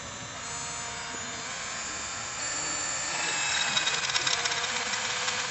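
Worx Switchdriver dual-chuck cordless drill boring a twist bit through thick-gauge steel flat bar, the motor running under load with the bit grinding into the metal. It grows louder about halfway through, with a rapid chatter near the end as the bit bites deeper.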